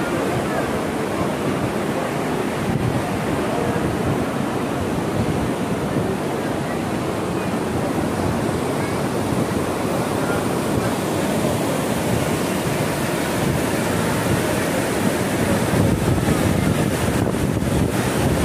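River water rushing over the stepped weir of the Khaju Bridge, an even, continuous roar of churning white water that grows a little louder near the end.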